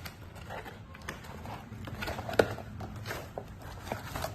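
Handling noise as the indoor monitor unit of a video door phone kit is picked up and moved about: light rustles and small clicks, with one sharper tap about two and a half seconds in, over a steady low hum.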